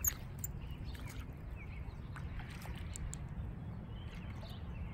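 Steady low rumble of wind on the microphone, with faint bird chirps now and then.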